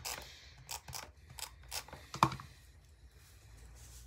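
Paper and cardstock being handled and shifted across a cutting mat: a run of short paper rustles and light taps, with one louder knock about two seconds in, then quieter.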